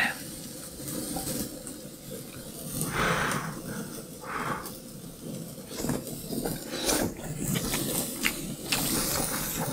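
A person eating doenjang stew with a spoon: a couple of short slurps about three and four and a half seconds in, among scattered light clicks of the spoon and mouth.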